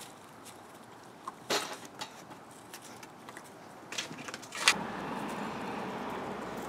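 Puppies' paws tapping and scuffing on stone paving, with scattered light clicks and a sharper knock about a second and a half in. About two-thirds through, a steady rushing noise sets in.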